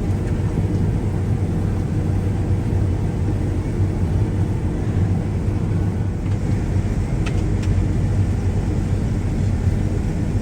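Combine harvester running steadily while harvesting wheat: a constant low engine and machinery drone with a strong low hum.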